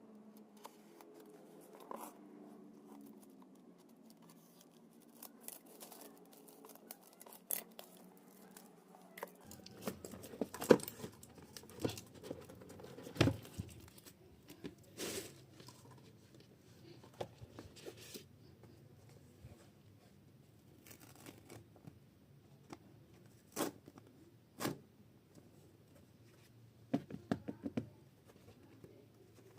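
Packaging being handled and opened: scattered taps, clicks and rustles, with a few sharper knocks a little past a third of the way in and again about halfway.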